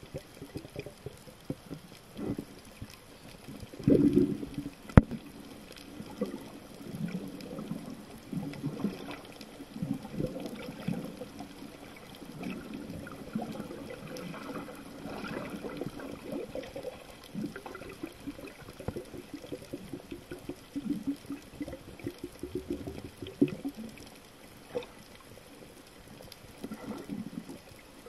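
Muffled water sloshing and gurgling against an underwater camera, in irregular swells. A single sharp knock comes about five seconds in.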